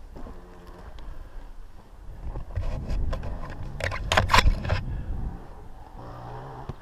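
Dirt bike engine running at low revs, near idle. A cluster of scraping and clattering knocks comes from about two and a half to four and a half seconds in and is the loudest part.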